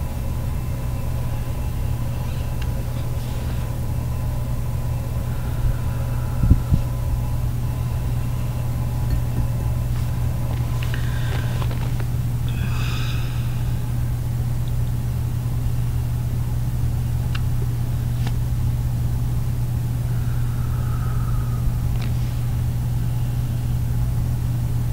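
A steady low hum, with a couple of soft knocks about six seconds in.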